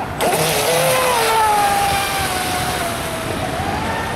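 Radio-controlled speedboat's motor whining at speed over the hiss of spray, cutting in abruptly just after the start; the pitch sinks slowly as it runs, then rises again near the end.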